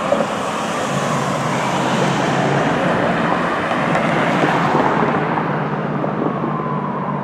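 A fire engine and ladder truck driving away on an emergency call, their diesel engines running under a steady rumble of road noise, with a siren wailing faintly, its pitch sweeping down near the end.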